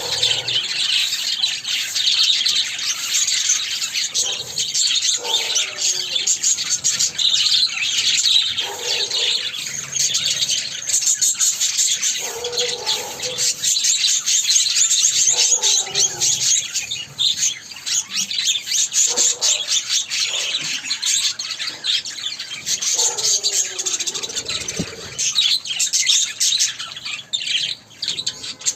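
Budgies and lovebirds chirping and chattering together in a dense, continuous twitter. Lower warbling calls break in every few seconds.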